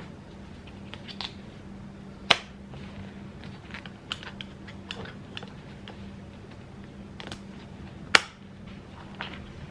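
Plastic harness buckle and chest clip of an Evenflo Pivot infant car seat being fastened: scattered small clicks and fumbling, with two sharp snapping clicks, one a couple of seconds in and one near the end, as the latches lock.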